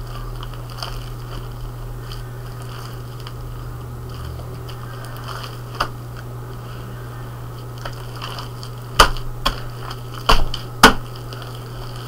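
Fluffy slime being kneaded and squeezed by hand on a wooden board: soft squishing, with a few sharp pops and clicks, most of them clustered about nine to eleven seconds in. A steady low hum runs underneath.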